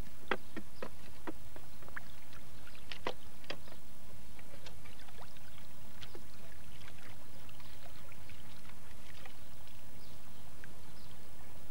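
Shallow stream water splashing and sloshing as wellington boots kick up the stony stream bed into a hand net during kick sampling, with sharp splashes and knocks that are thickest in the first four seconds and then thin out. A steady low hum runs underneath.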